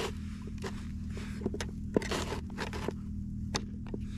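A round plastic Frabill tip-up scraping and crunching on crushed ice as it is pressed down over the ice hole, with several short clicks as its flag trigger is set.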